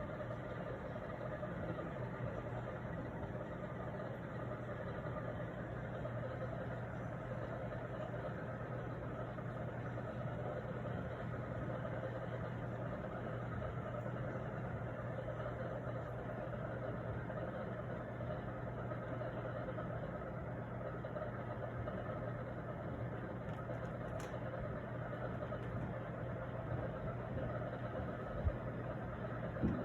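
Condensate pump fitted to a Mitsubishi mini-split air conditioner running with a steady, unbroken hum and a low drone. The pump runs constantly, which the owner calls an awful noise. There is a faint click about three-quarters of the way through and a couple of low thumps near the end.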